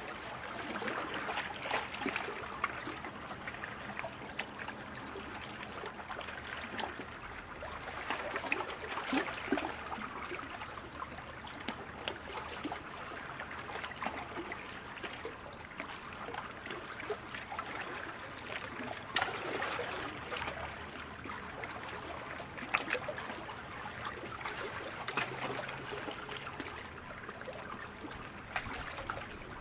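Water splashing in a steady wash, with many scattered sharper splashes, from sprint canoes' paddles and hulls cutting through the water.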